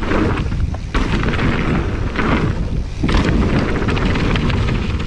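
Wind buffeting the camera's microphone as a mountain bike rides fast down a dirt jump line, a loud rumbling rush that surges up and down, with tyre and trail noise under it.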